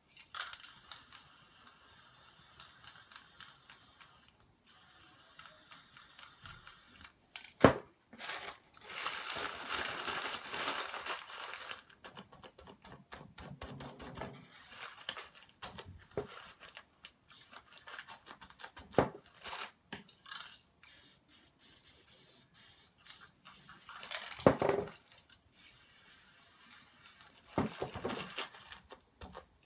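Aerosol spray paint can hissing, first in two long sprays and then in many short bursts. Paper rustles and there are a few sharp knocks in between.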